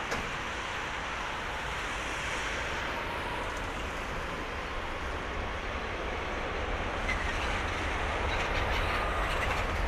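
Airbus A320-214's CFM56-5B turbofan engines running at taxi thrust, a steady whooshing jet noise with a deep rumble underneath that grows a little louder near the end.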